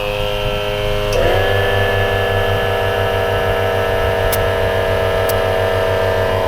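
Portable electric air compressor (tire inflator) running steadily while inflating a car tire. Its motor hum dips briefly about a second in, then settles slightly louder, with a fast even pulse underneath.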